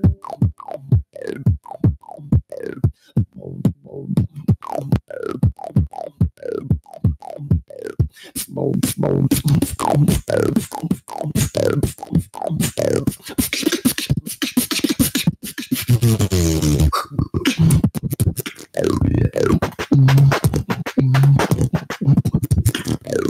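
Solo beatboxing into a handheld microphone: a fast rhythmic run of kick-like strokes, each falling in pitch, then from about eight seconds in a fuller beat with hissing hi-hat and snare sounds over held low bass tones. The beat drops out briefly about two-thirds of the way through and picks up again.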